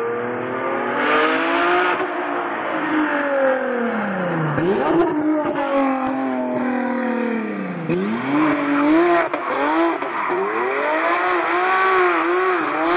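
Audi B5 S4's 2.7-litre V6, converted to a single turbo, revving hard under acceleration. The revs climb and drop sharply twice, then bounce quickly up and down while the tyres spin and squeal, throwing up smoke.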